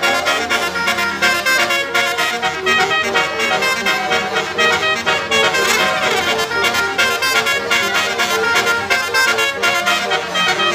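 Continuous music with a steady beat and a brassy, horn-like melody.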